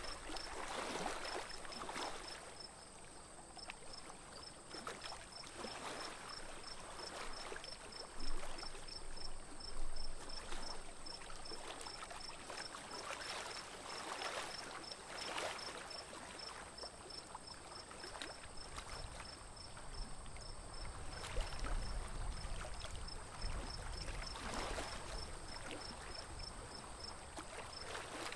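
Water splashing and lapping with the strokes of a paddle on a small wooden boat, in uneven swells every second or few. Over it run a steady high whine and a fast, even ticking of about four ticks a second, with a low rumble for a few seconds past the middle.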